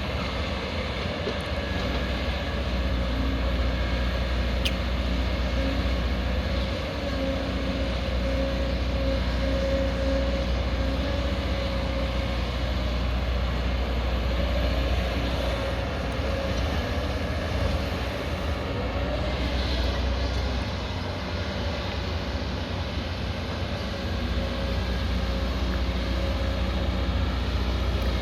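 Diesel engine of a 20-tonne-class crawler excavator running steadily under working load, a continuous drone with a held mid-pitched tone, easing a little for a few seconds about two-thirds of the way through.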